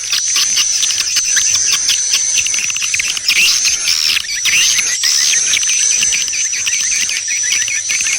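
Swiftlet lure call recording: a dense, continuous chatter of rapid high chirps and twitters over a steady high tone, played to attract swiftlets to a nesting house.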